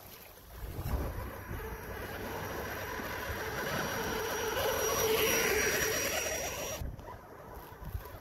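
Radio-controlled buggy on paddle tyres driving over sand, its motor whining as it runs. It gets louder to a peak about five seconds in and cuts off abruptly near the end.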